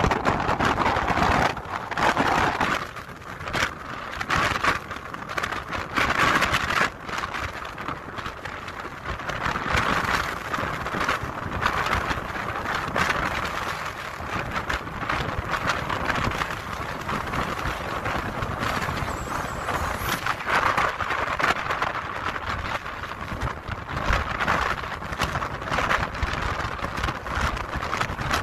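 Strong storm wind buffeting the microphone in irregular gusts, a rough rushing noise that swells and drops every second or two.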